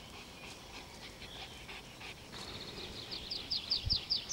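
Dog panting, with a bird singing a quick run of short, high notes that starts about halfway through and grows louder. A brief low thump comes near the end.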